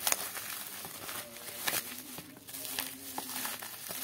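Bubble wrap and plastic packaging crinkling and rustling as hands unwrap a parcel, with irregular crackles.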